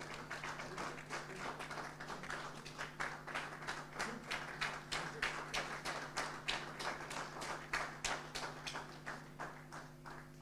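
Scattered hand clapping from a small group of people, the individual claps distinct rather than a dense roar, thinning out near the end.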